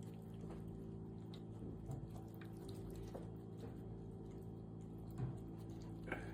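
Cordless cat water fountain running: a faint steady pump hum, with the water trickling and a few small irregular drips.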